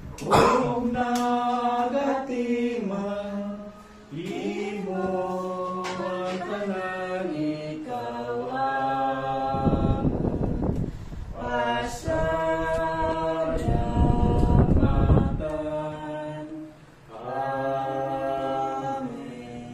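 A man's voice chanting a sung prayer of thanksgiving, grace before a meal, in long held notes that step up and down in pitch. Twice near the middle a short burst of noise sounds over the singing.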